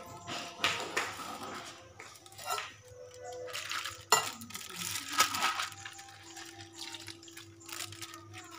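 Kitchen noises: water splashing in several short bursts and a sharp clink about four seconds in, over faint background music.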